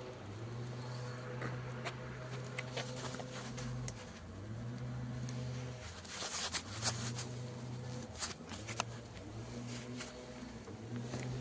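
Powered wheelchair's electric drive motor humming, stopping and starting again in stretches of one to three seconds, with scattered clicks and rattles from the wheels rolling over paving stones.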